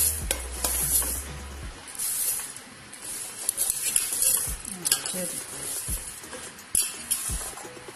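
Dry split black urad dal poured from a steel bowl into a pressure cooker of soaked rice: the falling lentils hiss and patter onto the rice and steel in several bursts, with a few light clinks of the bowl against the cooker.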